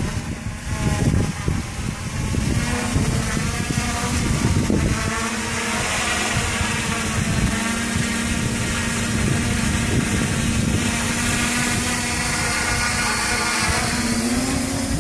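Reptile Aphid X450 quadcopter's motors and propellers buzzing steadily as it hovers close by. The pitch rises slightly near the end.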